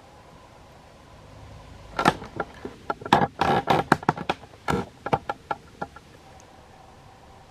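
Stiff plastic blister packaging crackling and clicking as it is handled, a burst of sharp crackles lasting about four seconds.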